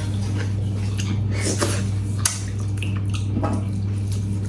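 Eating at a meal: scattered small clicks of cutlery and dishes with soft wet mouth sounds, over a steady low hum.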